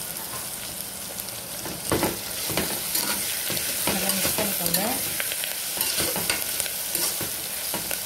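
Sweet corn, onion, coriander and mint sizzling in oil in a pressure cooker. From about two seconds in, a spatula stirs the mix in repeated strokes, scraping against the pot with a few short squeaks.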